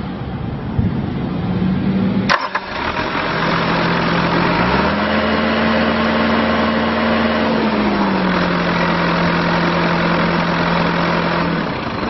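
2013 Bobcat T630 track loader's Kubota four-cylinder diesel engine running, heard at the open engine compartment. A short sharp click comes a couple of seconds in; then the engine revs up, holds higher for about three seconds, and drops back to idle.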